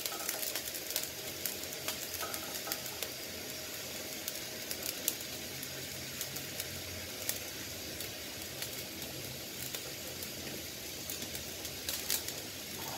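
Pabda fish curry gravy simmering in a pan as fried fish pieces are laid into it: a steady hiss with scattered small pops and crackles.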